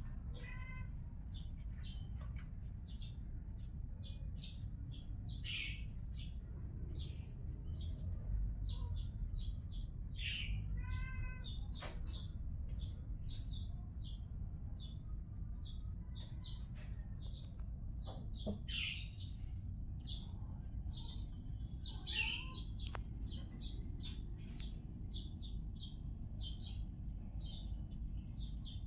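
Small birds chirping over and over, short high chirps with a few longer falling calls, over a steady low rumble and a faint high pulsing tone.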